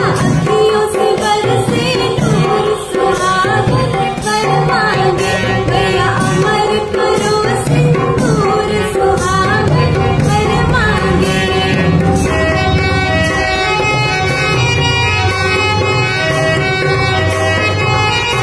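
A woman singing a Bundeli folk song over a rhythmic drum accompaniment. About twelve seconds in the voice stops and an instrumental melody carries on over the drums.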